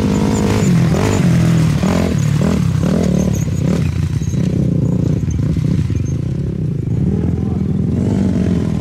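Race quad (ATV) engine revving hard as it comes by close, its pitch rising and falling several times in the first few seconds, then running steadier as it goes past and away.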